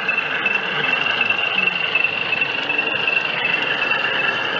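G scale model diesel locomotives running along garden track, giving a steady high-pitched whine.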